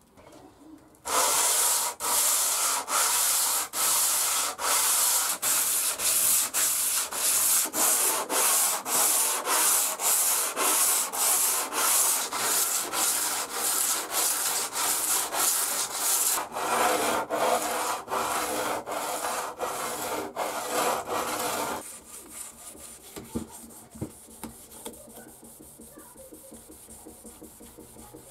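A metal hand-plane part rubbed back and forth on abrasive paper on a wooden bench, about one and a half strokes a second, to strip rust and flatten it. The strokes stop about 22 seconds in, and a much fainter scrubbing follows.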